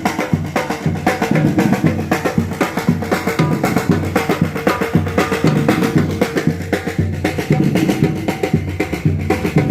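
Drum-driven music from a carnival parade: drums beating a fast, steady rhythm, with some pitched instruments above them.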